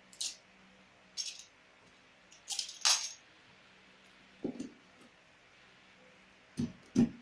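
Handling noises while packing drills for shipping: a few short high rustles or scrapes in the first three seconds, then several dull thumps toward the end.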